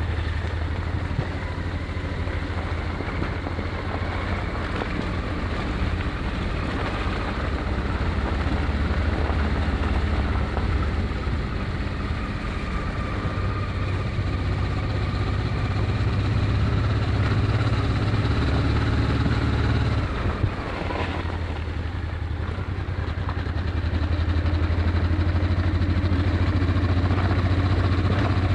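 Honda XRV750 Africa Twin's V-twin engine running steadily at low revs as the motorcycle is ridden. The engine note briefly drops about twenty seconds in, then runs a little louder near the end.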